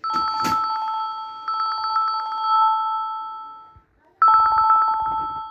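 Trilling electronic telephone ringtone: a few steady tones warbled rapidly, with a couple of knocks at the start. It fades out after almost four seconds and rings again after a short pause.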